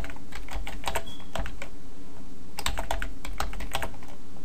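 Computer keyboard typing in two quick runs of keystrokes, with a pause of about a second between them.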